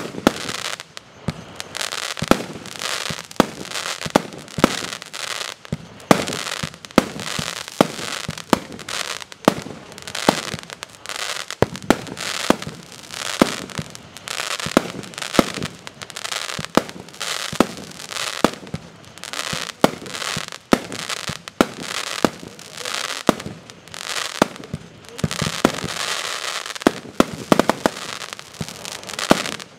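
A 49-shot, 22 mm consumer firework cake firing its shots in steady succession, about one and a half sharp bangs a second. A hiss and crackle of the bursts fills the gaps and thickens near the end.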